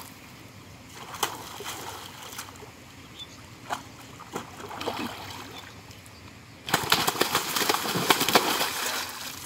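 A large fish thrashing in shallow pond water while a fisherman holds it. Water sloshes with a few sharp splashes at first, then heavy splashing breaks out about two-thirds of the way in and runs for about three seconds.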